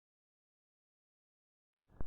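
Near silence: the track is silent, with only the faint start of a sound in the last instant.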